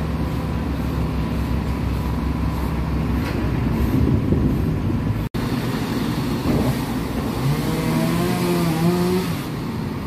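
Diesel truck engines running steadily in street traffic, a low even hum. Partway through the sound breaks off abruptly, and later an engine note rises and wavers for about two seconds, like an engine revving up.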